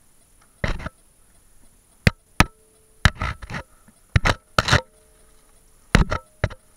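Irregular knocks and scrapes, about a dozen over several seconds, some followed by a short ringing tone, as of someone clambering and handling things in a cramped dark space.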